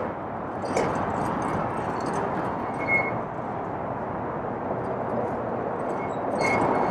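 Steady road and traffic noise from a car driving along a city street, with a few scattered light clicks and a brief high squeak about three seconds in.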